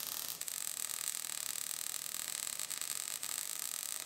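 Arc welding on a steel car frame rail: the welding arc's steady crackling hiss, getting brighter about half a second in.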